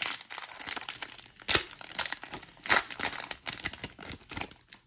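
Trading card pack wrapper being torn open and crinkled by hand: a dense run of crackling and tearing, loudest about one and a half seconds in and again near three seconds, that stops at the end.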